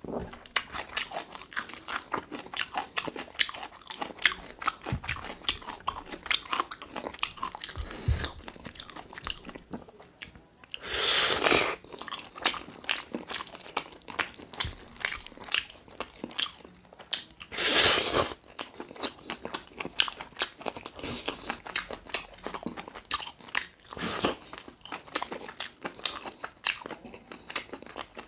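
Close-miked eating: a person biting and chewing chicken drumsticks with rice, a steady run of small wet clicks and smacks. Two louder, noisier bursts of about a second each come about a third of the way in and again near two-thirds.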